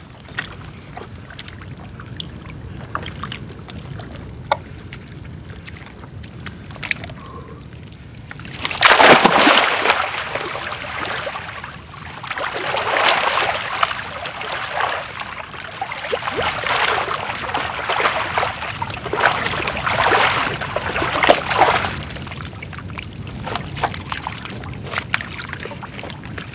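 A person wading and crawling through wet mud and shallow water: splashing, sloshing and squelching. It starts quietly with scattered small clicks, then turns loud about a third of the way in and comes in repeated surges before easing off near the end.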